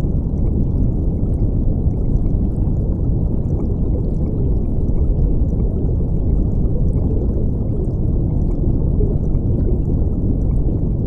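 Steady, deep rush of moving water, muffled with no hiss in the high end, even and unchanging.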